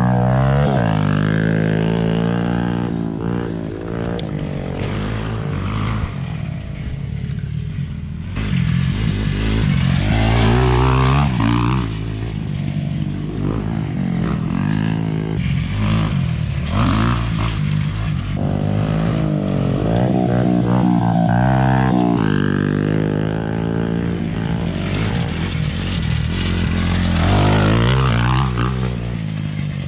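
Dirt bike engines revving up and falling back again and again, the pitch rising and dropping with each twist of the throttle as they ride around the track.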